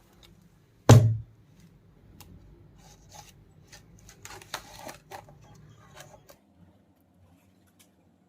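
A single loud thump about a second in, then faint scattered clicks, taps and rustles of objects being handled over a low hum.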